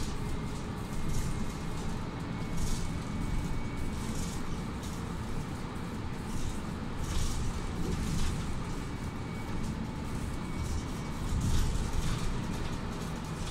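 Cabin noise inside a Mercedes-Benz Citaro C2 city bus on the move: a steady low engine and road rumble, with occasional short hisses.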